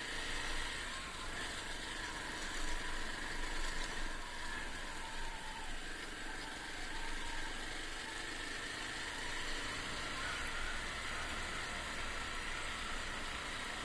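Honda XR250's single-cylinder four-stroke engine running steadily, under a steady hiss of wind and road noise.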